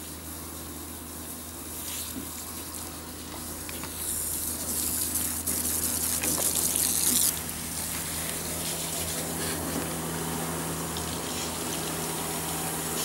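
Water spraying from a hose nozzle against a car's side and wheels, a steady hiss that grows louder and harsher about four seconds in and eases a little after about seven seconds. A steady low hum runs underneath.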